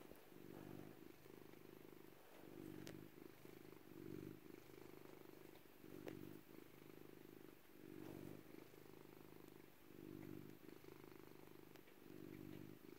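Domestic cat purring, faint and steady, swelling and easing with each breath about every two seconds.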